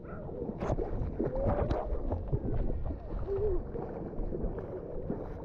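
Swimming-pool water sloshing and churning around a GoPro in the water, heard dull and muffled with little treble, with knocks and a couple of short muffled children's cries.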